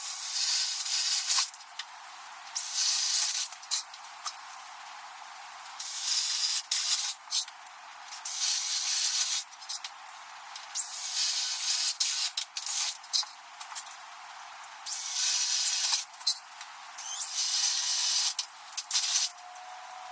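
Cordless drill boring holes into a wooden 2x6 board, run in about ten short bursts of one to two seconds with pauses between, the motor's whine rising and falling with the trigger.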